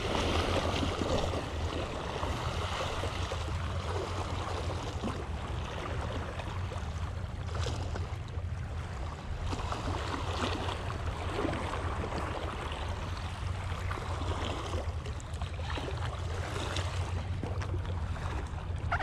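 Small waves washing and lapping against the rocks of a granite seawall, over a steady low rumble.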